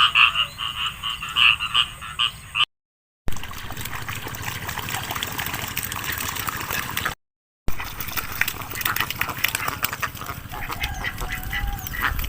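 A frog chorus of rapid pulsed croaks for the first few seconds. After two short cuts comes a rougher stretch of dense clicking and crackling, with ducks starting to quack near the end.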